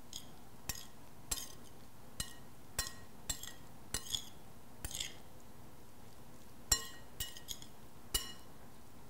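A metal spoon clinking against a glass mixing bowl while a grated salad is tossed: about a dozen irregular light clinks, each with a brief ring, with a short pause in the middle.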